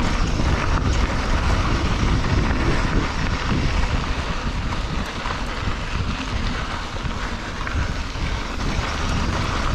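Wind buffeting the camera microphone over the rumble of mountain bike tyres rolling fast on a dirt trail, with the bike rattling now and then.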